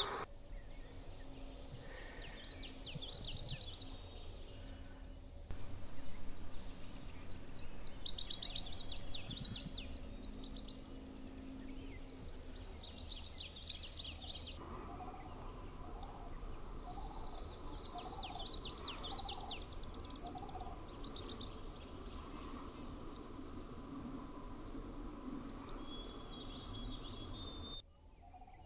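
Warbler songs: a chestnut-sided warbler sings its short, high song several times, and later a Nashville warbler sings. Each song is a rapid run of high notes lasting one to two seconds, repeated every few seconds.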